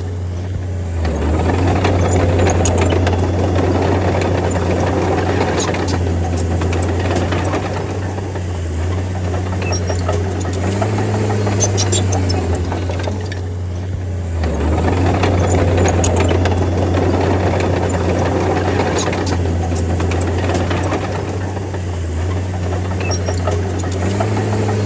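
Crawler bulldozer's diesel engine running under load with a steady low drone, its note dipping and recovering a few times. Clanking and rattling from the tracks and blade swell for long stretches and ease off twice, with scattered sharp clanks.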